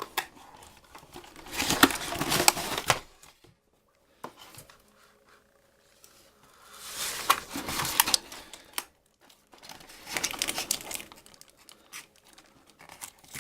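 Packaging crinkling and tearing as toy pieces are unwrapped by hand, in three bursts with small clicks among them.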